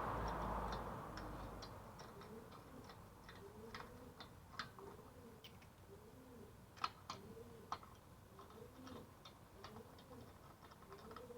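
A pigeon cooing in a repeated phrase, over and over, with scattered faint sharp clicks; the loudest two clicks come a little past the middle.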